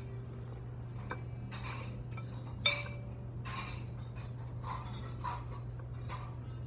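Cutlery and dishes clinking and scraping during a meal, with one sharp ringing clink about two and a half seconds in, over a steady low hum.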